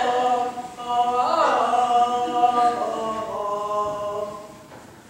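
A woman's solo voice chanting unaccompanied in long held notes, with an ornamented rise and fall in pitch about a second in, dying away near the end.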